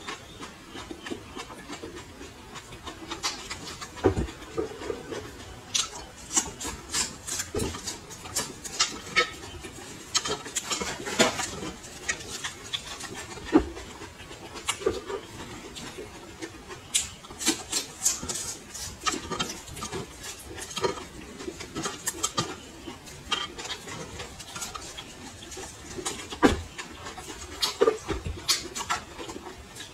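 Close-up crunching and chewing of raw red chillies: many crisp, irregular crunches and mouth sounds as the fresh pods are bitten and chewed, with an occasional low knock.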